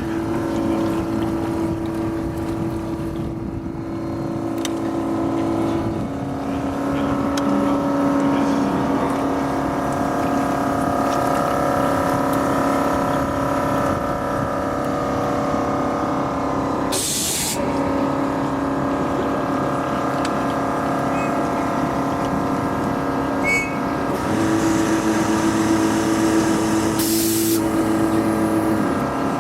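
Motorboat engine running steadily, its pitch stepping down and up a few times, with two brief bursts of hiss-like noise in the second half.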